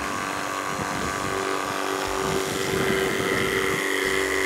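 Spyra 2 water gun's electric refill pump running as it draws water in through the nose to fill the tank, a steady motor hum. A stronger tone comes in about a second in and a higher whine joins about two seconds in.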